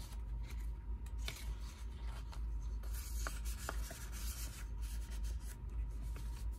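Paper tags and envelopes being handled and rubbed together: irregular rustling and scraping with a few light clicks.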